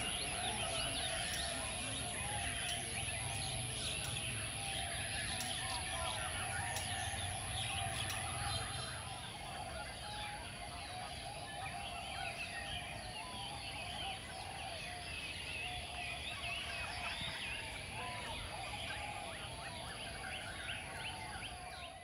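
Many caged songbirds singing and chirping at once in a dense, overlapping chorus, over a steady high-pitched whine and a low hum.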